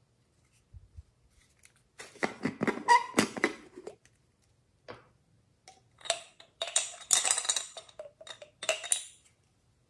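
Hands twisting and pulling apart a foam squishy sleeved over a clear plastic jar, with crackly scraping and rubbing of plastic against foam. It comes in two bursts, about two seconds in and again from about six to nine seconds.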